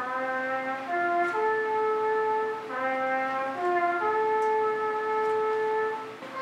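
Slow instrumental music of held chords in several voices, the chord changing every second or so.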